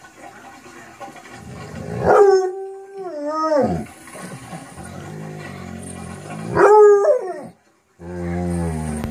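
Large Shar Pei mix dog howling: two loud howls, about two seconds in and again near seven seconds, each sliding down in pitch at its end, with lower drawn-out moans in between and toward the end.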